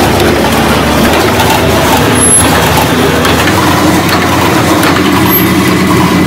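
Seasoning sachet packing machine running with a steady mechanical clatter and hum. The low hum drops about three and a half seconds in.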